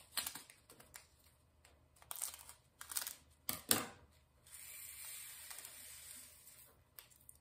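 Small plastic bag of diamond painting drills crinkling as it is handled, in short irregular bursts with two sharper crackles about three and a half seconds in, followed by a faint steady hiss for about two seconds.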